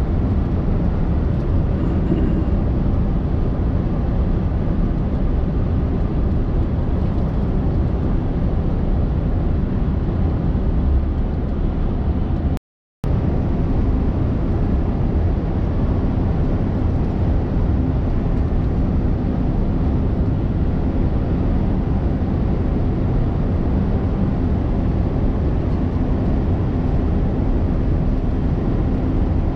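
Scania R580's V8 diesel engine and tyre noise heard inside the truck cab while cruising: a steady low drone. The sound cuts out completely for a split second about halfway through.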